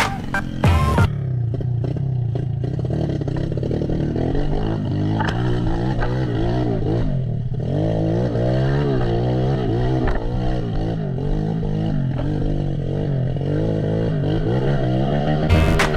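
Trail dirt bike engine ridden hard, its pitch rising and falling again and again as the throttle is opened and closed, heard from a camera on the bike or rider. Background music plays briefly at the start and comes back in near the end.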